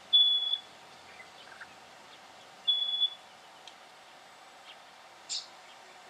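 Black honeyeater calling: two long, high whistled notes, each held at one pitch, about two and a half seconds apart, then a short, higher sound near the end.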